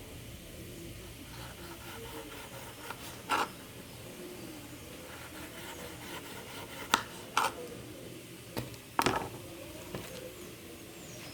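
A knife scraping and cutting the fibrous pulp off macaúba palm fruit: a steady rasping scrape broken by about six sharp clicks and knocks, the loudest two-thirds of the way through.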